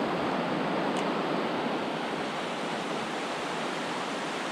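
Small mountain trout stream rushing steadily over rocks and riffles, running high and fast after recent rain.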